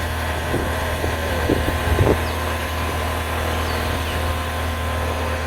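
Skid steer loader engine running steadily, an even low hum, with a few faint short sounds in the first two seconds.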